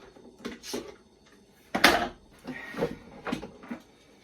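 Clamps being released and taken off a dry-fitted plywood nuc box: a series of wooden knocks and clatters, the loudest a little under two seconds in.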